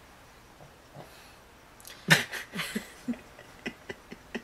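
A quiet pause, then about two seconds in a burst of breathy laughter trailing into short chuckles, with a few small clicks near the end.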